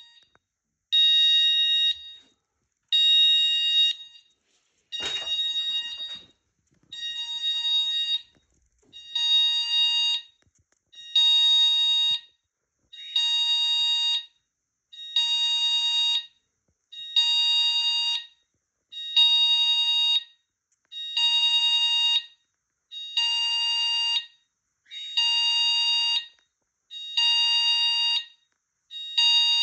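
Nittan fire alarm sounder going off in a pulsed pattern: a shrill tone about a second on, a second off, repeating steadily. A short knock sounds about five seconds in.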